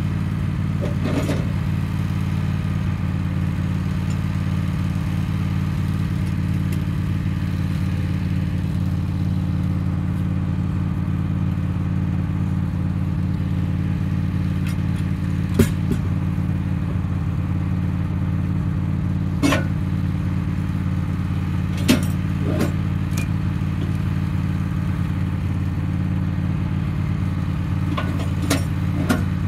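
Wood-Mizer LT15 portable sawmill's engine running steadily, not cutting, while a small ash log is turned on the steel bed with a cant hook. A handful of sharp knocks and clanks from the log and hook against the steel come through, the loudest about halfway through and a couple more near the end.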